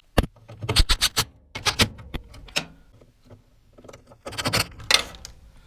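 Metal parts of a furnace blower assembly being handled and fitted back together: irregular sharp clicks, knocks and scrapes in quick clusters with short pauses between.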